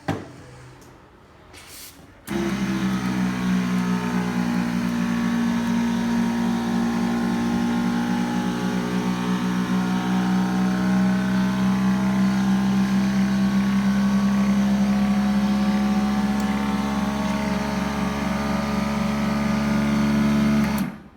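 Built-in vacuum pump of an OCA film laminating machine running with a steady hum. It switches on about two seconds in and cuts off abruptly near the end, after a short click at the start.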